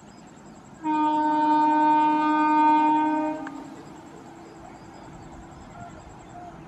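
Horn of an approaching Indian Railways electric locomotive: one loud, steady blast of about three seconds starting about a second in. A faint steady tone carries on after it.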